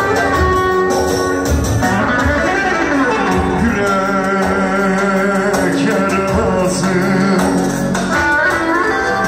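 Live Turkish folk music: a sung melody over plucked strings and steady percussion.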